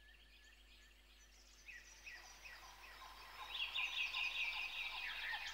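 Birdsong: many short overlapping chirps fading in and growing steadily louder, over a faint low hum.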